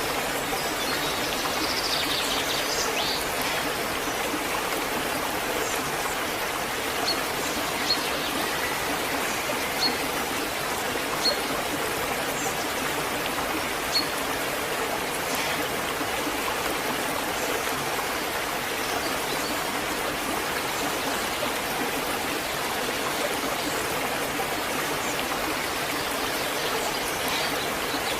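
Waterfall: a steady rush of falling, flowing water. A few short high pips sound over it in the middle.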